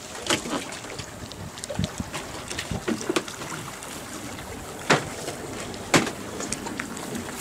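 Wind rushing on the microphone outdoors, with two sharp knocks about five and six seconds in and a few lighter clicks.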